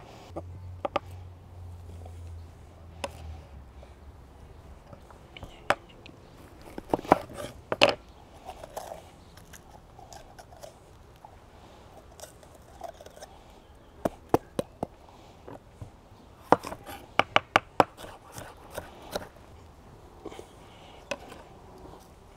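Kitchen knife chopping red and green bell peppers on a wooden cutting board: quick clusters of sharp knocks of the blade on the board with the crunch of the pepper flesh, in bursts separated by pauses.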